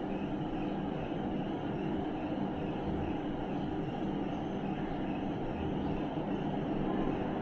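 Steady low mechanical rumble with a constant hum, unchanging throughout.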